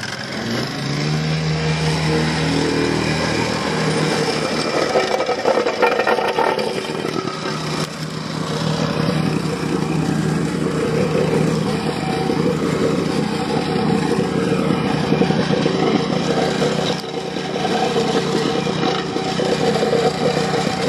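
An engine running steadily and loudly, its pitch rising a little in the first few seconds.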